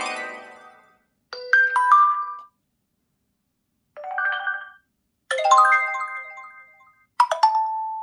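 Xiaomi Poco F3 preset phone tones played one after another: short electronic chimes of a few bright notes each, about a second long, separated by brief silences.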